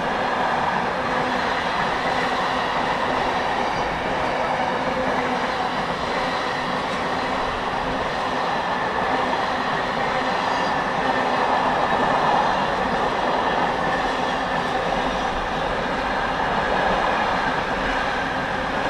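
Intermodal container freight train of mostly empty flat wagons rolling steadily past, a continuous rumble of wheels on rail.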